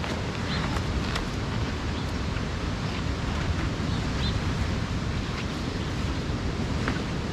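Steady outdoor rumble of wind on the microphone and surf, with a few faint short high chirps and light clicks.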